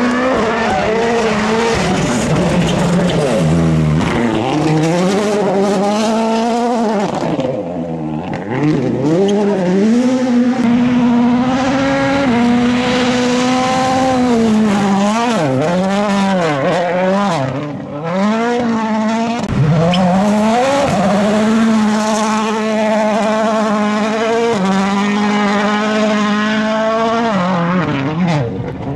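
World Rally Cars' turbocharged four-cylinder engines revving hard, one car after another, the pitch climbing through each gear and dropping back at the shifts and lifts. The sound dips briefly about eight and eighteen seconds in.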